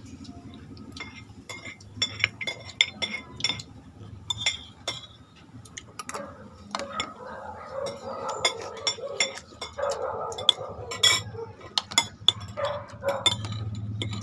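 Metal spoons clinking and scraping against plates as people eat, a scatter of short sharp clicks throughout.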